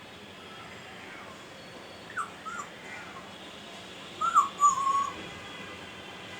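Parrot making short whistled calls: two quick gliding calls about two seconds in, then a longer call about four seconds in that falls and then holds steady for a moment.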